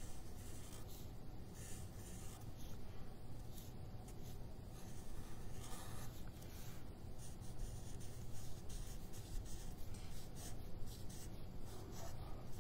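Marker pen drawing on paper in short, irregular strokes.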